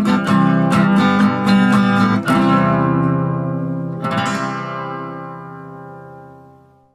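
Strummed acoustic guitar music: a run of quick strums, then a chord about two seconds in and another about four seconds in, the last left to ring and fade out.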